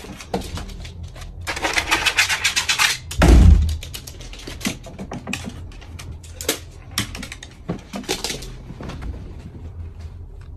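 A dog's claws scratching and clicking on hard surfaces in quick runs, with one heavy thump about three seconds in.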